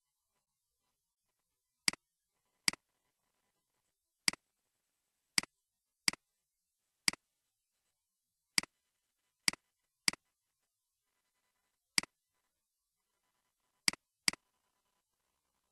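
Computer mouse clicks: twelve single sharp clicks at irregular intervals a second or so apart, two in quick succession near the end.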